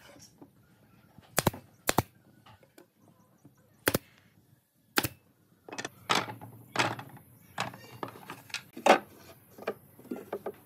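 Wooden frames and slats knocked against each other and set down on a wooden table: a few sharp, spaced-out wooden knocks, then a quicker clatter of knocks and clicks in the second half.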